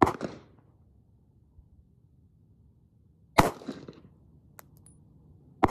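Sig Sauer P938 Legion 9mm pistol firing three single shots: one right at the start, one about three and a half seconds in and one near the end. Each report has a short echo after it.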